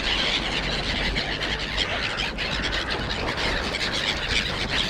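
Steady outdoor background noise: a low rumble under a dense hiss, with no single event standing out.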